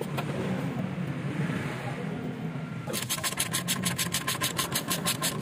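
Socket ratchet clicking rapidly and evenly, about six or seven clicks a second, as a bolt on the car's underbody is turned; the clicking starts about three seconds in. Before that there is a steady low hum with handling noise.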